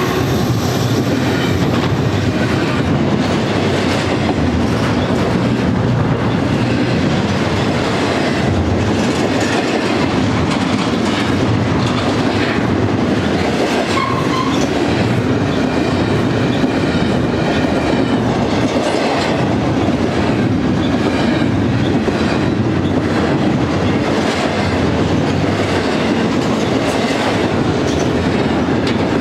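Double-stack intermodal freight train's well cars rolling past at speed: a steady heavy rumble with the clickety-clack of steel wheels over rail joints and rattling of the cars.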